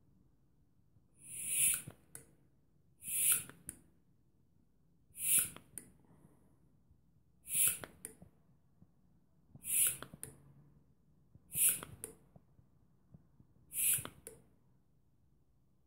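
Mityvac hand vacuum pump being squeezed seven times, about every two seconds; each stroke gives a short hiss of drawn air that swells and ends with a click. It is pulling vacuum on an engine cylinder for a leak test, with the gauge climbing to about 6 inHg.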